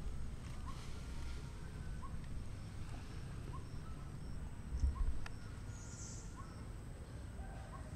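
A bird calls a short, slightly rising note over and over at an even pace, about every second and a half, over a low background rumble. A brief burst of high chirping comes about six seconds in.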